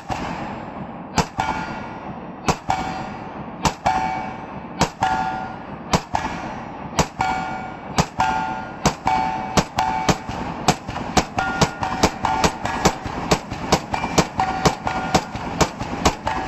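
Zastava ZPAPM70 semi-automatic AK-pattern rifle in 7.62x39 firing a string of single shots, about one a second at first, then quickening to about two or three a second from about ten seconds in. A short metallic ringing follows most shots.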